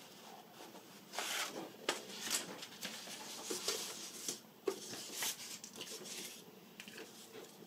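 Paper rustling as a large printed instruction sheet is handled and lifted away, in several irregular strokes from about a second in until past the middle.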